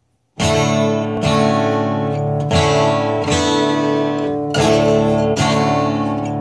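Acoustic guitar strummed in full chords, starting about half a second in, with a new strum roughly every second and the chords ringing between strums: the instrumental opening of a song.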